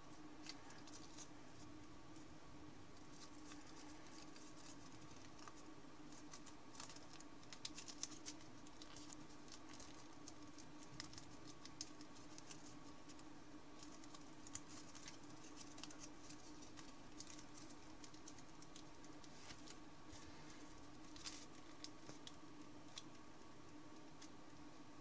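Thin origami paper crinkling faintly between the fingers as it is folded and pinched into shape, in scattered small crackles and ticks over a steady faint hum.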